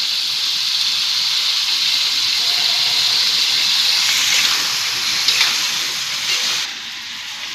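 Spiced meat frying in a wok, a steady loud sizzling hiss as it is stirred with a spatula, just after sweet soy sauce has gone into the hot pan. The hiss quietens about seven seconds in.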